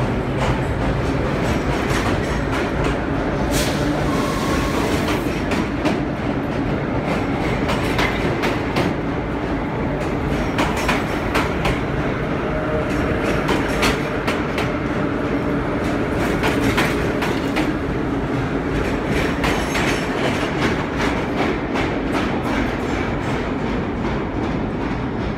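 Vintage New York City subway train running on the tracks: a continuous rumble, with the wheels clicking over rail joints again and again.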